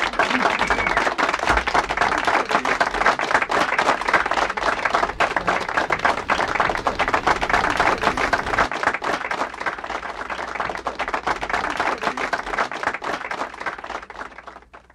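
Crowd applauding, a dense run of clapping that eases off and fades out near the end.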